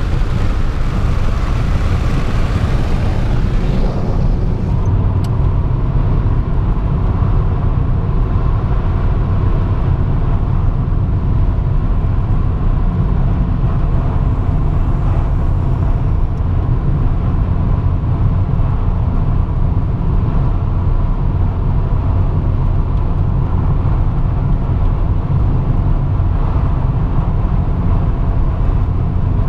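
Steady road noise inside a moving car at highway speed: a heavy low rumble of engine and tyres. A louder hiss over it for the first few seconds dies away about four seconds in.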